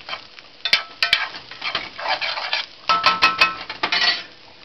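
Metal spoon stirring and scraping rice in a hot cast-iron skillet. Several sharp clinks of the spoon against the pan, with stretches of scraping.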